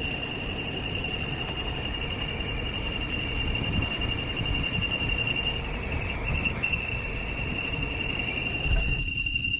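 A machine running with a steady high whine over a rough, even noise. The rough noise cuts off near the end while the whine carries on.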